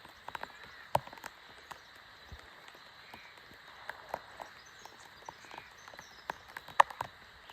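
Water dripping and tapping irregularly onto leaves and gear after heavy rain, over a faint steady background. A sharper tick comes about a second in and a louder one near the end.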